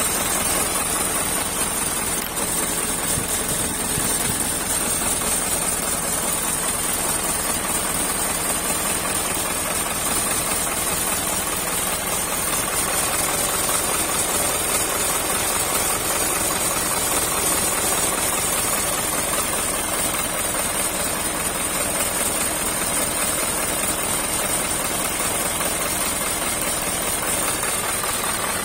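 Isuzu OHC diesel engine idling steadily in its engine bay.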